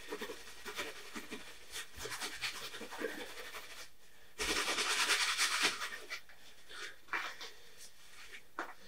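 Paper tissue rubbing and rustling over a wet oil-painted canvas, with a louder rush of rustling noise lasting about a second and a half near the middle.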